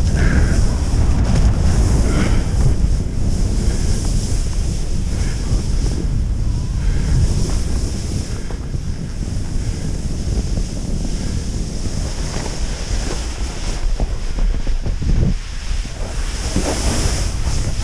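Wind buffeting the microphone of a body-worn camera, a loud, steady rumble, over the hiss of skis sliding on snow.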